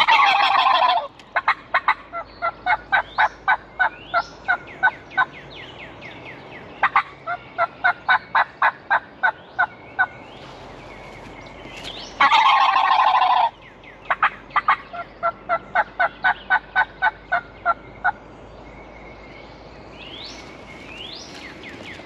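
Wild turkey gobbler gobbling loudly twice, each gobble lasting about a second, once at the start and again about twelve seconds in. Between and after the gobbles come runs of rapid, evenly spaced yelping notes, about four a second, with faint songbirds behind.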